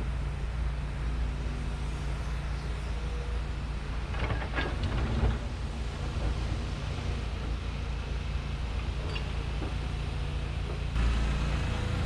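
Steady low rumble of engines, with a brief clatter about four seconds in; the rumble grows louder near the end.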